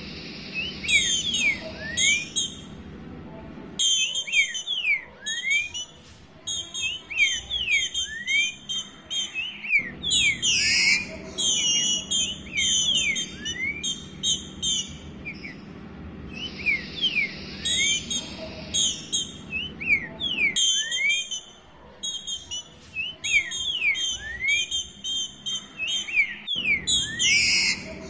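Female green-winged saltator calling to solicit mating: quick runs of short, rising whistled notes with higher twittering notes above them, broken by a few brief pauses.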